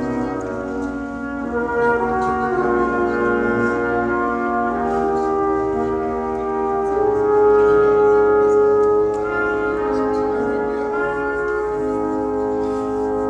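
Music: brass instruments playing slow, held chords that change every second or two, with the loudest sustained note about midway.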